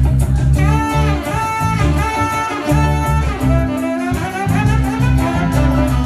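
A live band playing an instrumental passage. A saxophone plays held, sliding melody notes over electric guitar, bass and drums.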